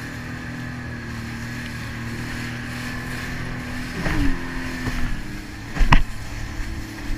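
Sea-Doo jet ski running steadily at speed, its engine drone under rushing water and spray. A few heavy thumps come as the hull slaps into the chop, the loudest about six seconds in.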